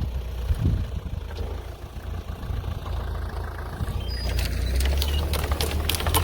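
Engine of a homemade rotary tiller idling low, then picking up again about two-thirds of the way through, with a rapid clatter of sharp clicks and knocks.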